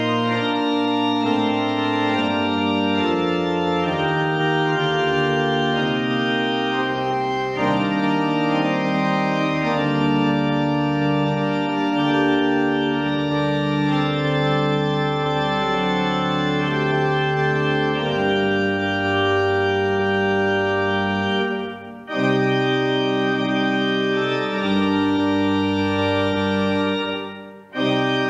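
Pipe organ played in full held chords over a low pedal bass line, the chords changing every second or two. The playing breaks off for a moment twice near the end.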